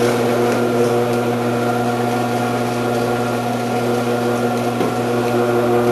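Electric commercial food processor running steadily with a shredding disc fitted, a steady motor hum, as cheese is shredded.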